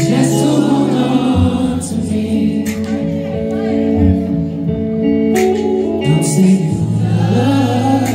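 A man singing live into a handheld microphone over musical accompaniment, his voice wavering on held notes above long sustained bass notes.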